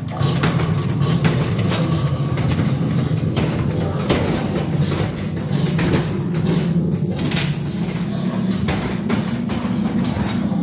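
Pneumatic zombie-crate prop running: a steady low drone with repeated knocks and clatters as air cylinders rock the crate on its hinged platform.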